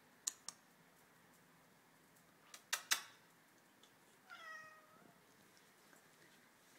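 A Birman cat gives one short meow about four seconds in, its pitch dropping and then levelling off. Before it come four sharp clicks, two near the start and two close together just before three seconds.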